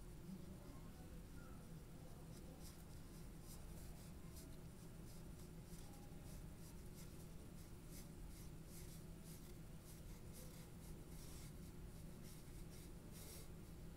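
Coloured pencil scratching on drawing paper in many short, faint strokes as an area is shaded in. A steady low hum sits underneath.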